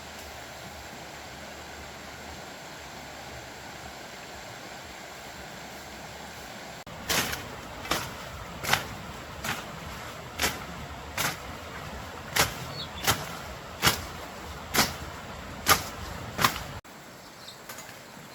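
A hand tool striking about a dozen times in a steady rhythm, roughly one sharp blow every 0.8 seconds, starting about seven seconds in and cutting off abruptly near the end, over a steady outdoor background hiss.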